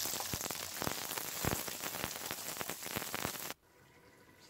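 Blanched almonds sizzling and crackling in hot oil in a frying pan, with sharp clicks as they are stirred with a wooden spatula. The sound cuts off abruptly about three and a half seconds in.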